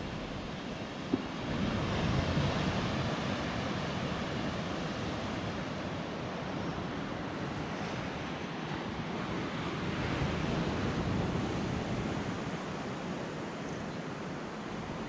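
Ocean surf breaking on a rocky shore below, a steady rushing wash that swells about two seconds in and again around ten seconds, mixed with wind on the microphone. A brief tap about a second in.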